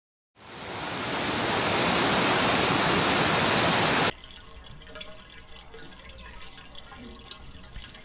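Waterfall whitewater rushing over boulders: a loud, even rush that fades in and cuts off abruptly about four seconds in. A much quieter stretch follows, with a few faint ticks.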